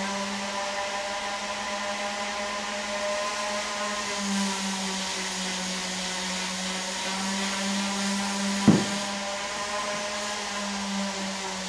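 Steady electric motor hum with an even hiss over it, like a fan or blower running. A single sharp knock sounds about nine seconds in.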